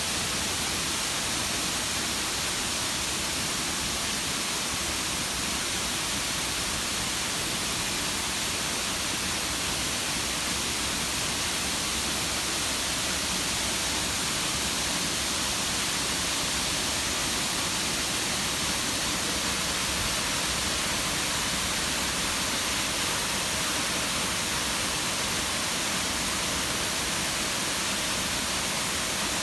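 Artificial waterfall: a steady, unbroken rush of falling water.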